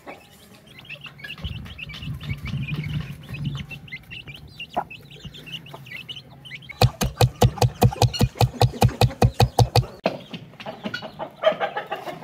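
Chickens clucking. About halfway through comes a quick, even run of some twenty sharp knocks over about three seconds, louder than anything else.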